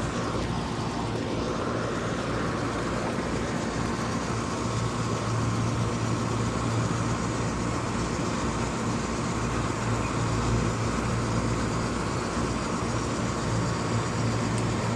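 York commercial HVAC unit running: a steady mechanical hum with a low drone and the rush of air from its fan and motor.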